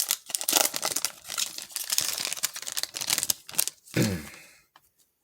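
A foil trading-card pack wrapper being torn open and crinkled by hand, in dense rapid crackles, ending about four seconds in with a brief low sound falling in pitch.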